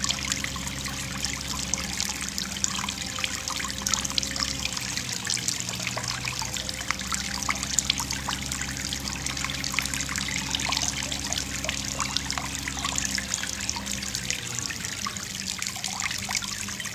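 Water spraying from a shower head and pattering down, a steady trickle full of small droplet splashes.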